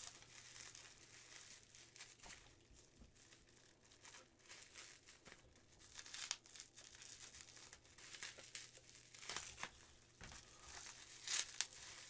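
Plastic and bubble-wrap packaging crinkling and rustling faintly as it is unwrapped by hand from a resin model part, with a few sharper crinkles about six seconds in and again near the end.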